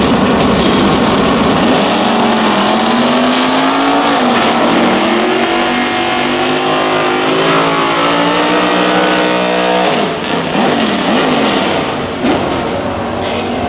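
First-generation Chevrolet Camaro drag car doing a burnout: the engine is held at high revs, its pitch climbing steadily over several seconds as the rear tyres spin and smoke. About ten seconds in the engine note drops off abruptly, followed by a few short revs up and down as the car rolls forward.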